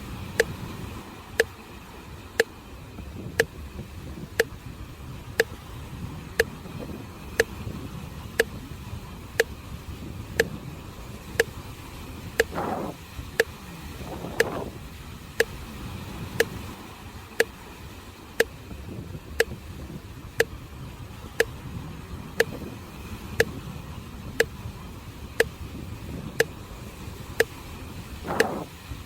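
Sea waves washing on the shore as a steady rush of surf, with a sharp, even tick about once a second like a metronome keeping the breathing pace. A few brief swelling rushes rise out of the surf around the middle and near the end.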